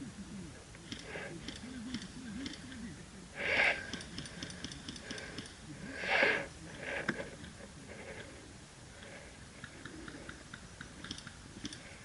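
A person breathing close to the microphone, with two loud breaths about three and a half and six seconds in, among light rustling and small clicks.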